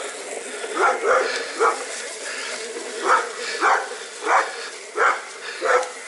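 A dog barking repeatedly, about eight short barks at uneven intervals, over a steady fainter hum.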